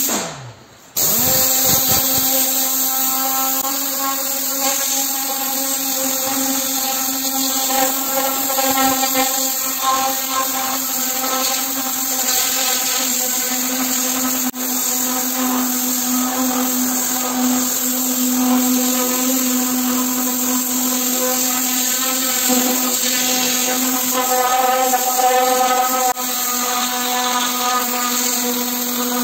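Tornador air-powered cleaning gun running, blowing cleaning chemical out with compressed air through its whirling nozzle tube. It makes a steady buzzing hum over a hiss, starting about a second in.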